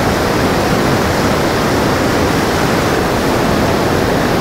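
A fast mountain river rushing over rocks in white-water rapids: a loud, steady roar of water.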